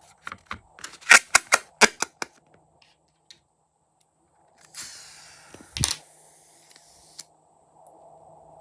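Crunchy slime being squeezed and worked, giving a quick run of sharp crackling pops, about eight in two seconds. A few seconds later comes a hissing rustle with one loud snap in the middle.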